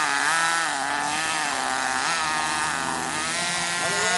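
Small two-stroke nitro engine of a radio-controlled monster truck running, its pitch rising and falling as the throttle is worked.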